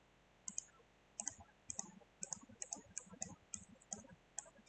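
Computer mouse clicked repeatedly: about a dozen short, sharp clicks at uneven intervals, many in quick pairs.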